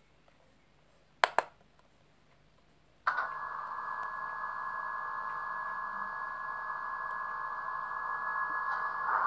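Sound decoder of a Piko H0 BR 106 model diesel locomotive (ZIMO MX645 with Henning sound) playing through the model's small speaker: two sharp clicks about a second in, then a diesel engine starts abruptly about three seconds in and runs steadily at idle, swelling slightly near the end.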